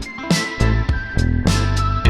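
Background music: a funky track with bass, a regular drum beat and guitar.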